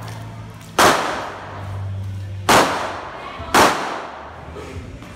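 Three pistol shots from a compact carry pistol, each a sharp crack with a short echo under the range's roof; the first comes about a second in, then two more about a second and a half and a second apart.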